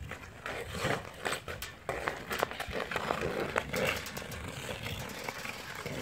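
Ice hockey skates scraping and carving on rink ice, with a string of sharp clacks from hockey sticks tapping the puck and the ice during stickhandling.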